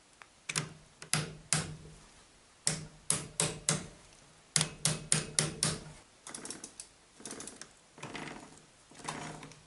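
Moped roller drive chain and pliers clicking and clacking as the chain is handled at the rear sprocket: sharp metallic clicks in clusters of three or four, then looser rattling in the second half.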